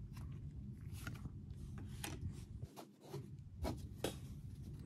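Trading cards being handled: a few short rustling slides and light taps of card stock as a card is laid on the table and the stack is shuffled in the hands, over a low steady hum.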